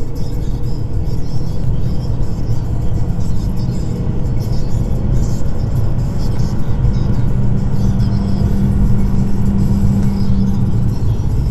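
Volkswagen Golf Mk5's 1.4-litre 75 PS four-cylinder petrol engine under hard acceleration: a loud, steady low drone of engine and road noise, with a steadier hum coming in about seven seconds in.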